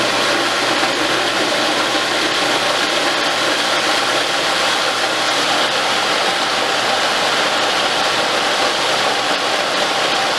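Food processor motor running steadily at full speed, its blade chopping a bowlful of peeled, blanched tomatoes into smooth puree.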